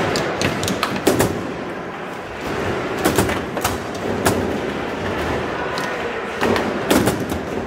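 Foosball play: irregular sharp knocks of the ball being struck by the plastic players and the rods clacking against the table, some in quick pairs, over a steady background of hall noise.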